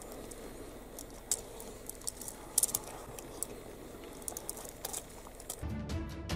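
Leopard chewing on a porcupine: faint, scattered sharp clicks and crackles over a low hiss. About five and a half seconds in, music with a steady low beat starts.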